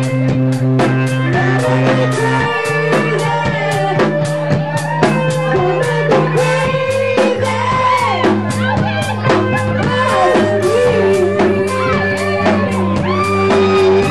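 A live funk band playing: electric guitar and a held bass line over a steady drum beat, with a voice singing over it. The bass moves to a new note about two and a half seconds in and again about seven seconds in.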